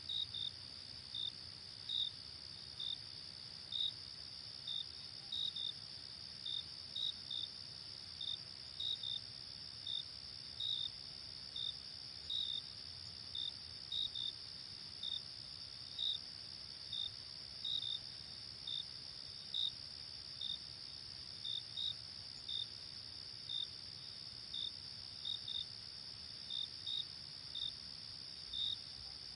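Night insect chorus: a steady high-pitched trill with short chirps repeating irregularly, about one or two a second, over a faint low rumble.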